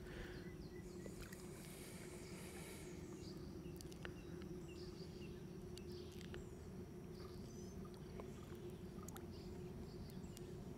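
Quiet open-water ambience: a faint steady low hum with scattered small ticks and a few faint high chirps.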